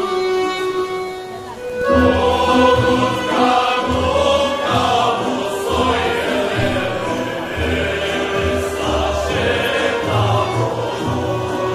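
A group of men singing a folk song together in a Bosilegrad Krajište dance, coming in loudly about two seconds in after a short solo melody line.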